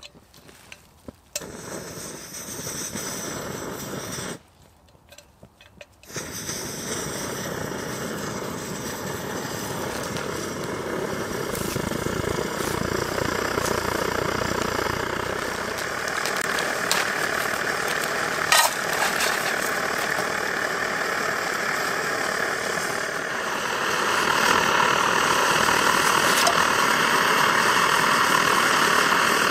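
Svea 123R petrol stove burner running with a steady, even rush that slowly grows louder after its priming flame has heated it. Near the end, water is poured from a canteen into a metal pot.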